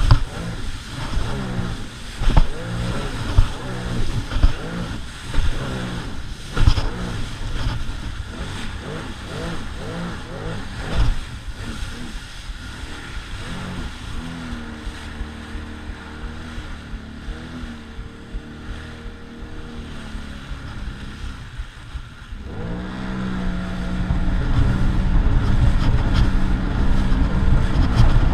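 Sea-Doo Spark Trixx personal watercraft engine running under way, its pitch shifting with the throttle, with several sharp thumps in the first ten seconds or so. It settles to a steadier, quieter run in the middle, dips briefly about three-quarters of the way through, then is opened up and runs louder to the end.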